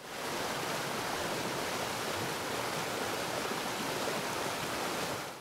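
Steady, even rushing noise with no rhythm or tone, like running water. It starts quickly and cuts off abruptly at the end.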